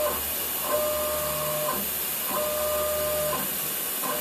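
The mill's Z-axis drive motor, driving the spindle through a worm drive and rack and pinion, makes short moves of about a second each, three times, with a steady whine and a low hum under it. It is being jogged up and down in 1 mm steps against a dial gauge to check the Z-axis accuracy.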